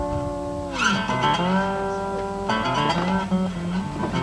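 Country music played on guitar, with no singing. A held chord slides down in pitch under a second in, then new plucked guitar notes come in, and a fresh phrase starts about two and a half seconds in.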